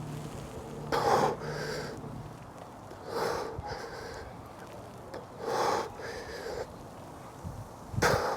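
A person breathing hard in a regular rhythm, with a strong breath about every two and a half seconds, each followed by a softer one.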